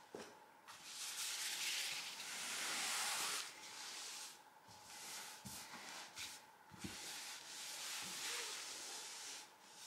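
Cotton T-shirt fabric rustling and swishing as hands spread and smooth it flat on a table, in several strokes, the longest near the start, with a few soft knocks.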